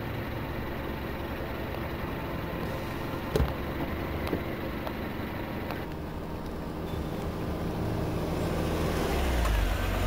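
City street traffic noise with cars passing, and a car door shutting with a thump about three seconds in. Near the end a car engine grows louder as a car draws up.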